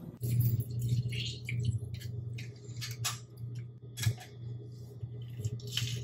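Hand-held metal lemon squeezer pressing lemon slices over a glass measuring cup, giving a few sharp irregular clicks over a steady low hum.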